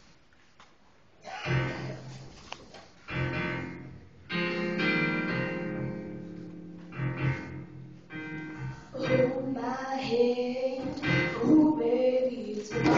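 A guitar starts playing strummed chords about a second and a half in, and young female voices begin singing a song over it a few seconds later.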